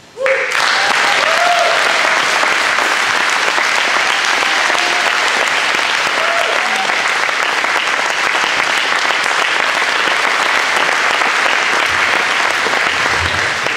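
Congregation applauding: the clapping breaks out suddenly just after the speaker's closing "Thank you" and holds steady and loud, easing off only at the very end.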